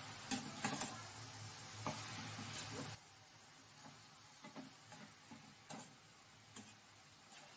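Metal spatula stirring shredded cabbage in a stainless steel pan, with irregular clinks and scrapes against the pan. The clinks are louder in the first few seconds and softer taps follow, over a low hiss that stops about three seconds in.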